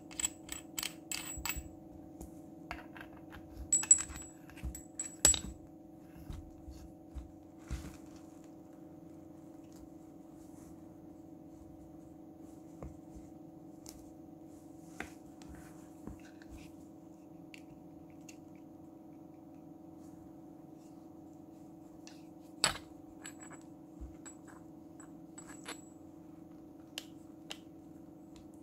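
Brass pipe fittings clinking and clicking against each other as they are handled and screwed together by hand. A cluster of taps comes in the first few seconds and a single sharp clink about 22 seconds in, over a steady low hum.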